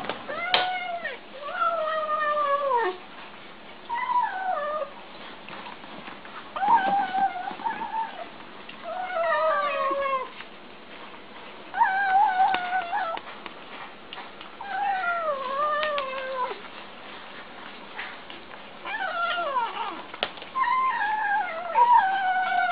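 Tabby kittens mewing while they eat: about nine drawn-out calls, each about a second long and mostly falling in pitch, every two to three seconds.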